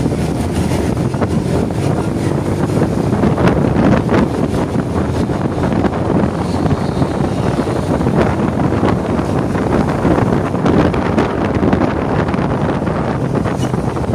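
Wind rushing over the microphone of a moving vehicle, with the vehicle's engine and road noise running steadily underneath.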